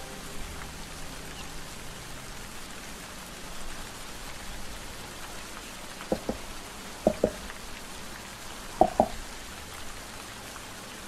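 Steady rain falling, an even hiss, with a few short, sharp double taps about six, seven and nine seconds in.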